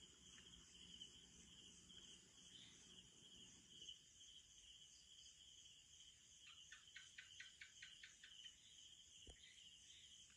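Faint night chorus of crickets trilling steadily. About six and a half seconds in, a quick run of about a dozen chirps, roughly six a second, lasts two seconds. A faint low rumble dies away about four seconds in.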